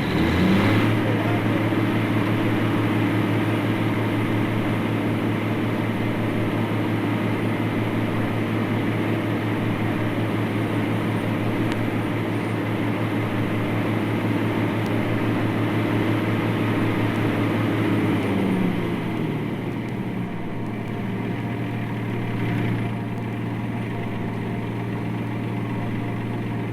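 A motor engine running steadily with a deep hum. About eighteen seconds in its note drops a little and it eases off.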